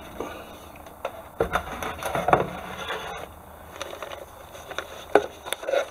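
Cardboard lid being lifted off a large model kit box, with scattered light knocks, scrapes and rustling of paper and plastic-bagged parts as the box is opened.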